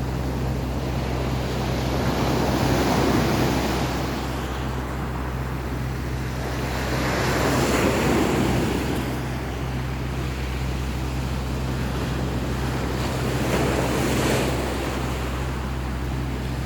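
Sea waves washing onto the shore, swelling and fading about every five seconds, with a steady low rumble of wind on the microphone.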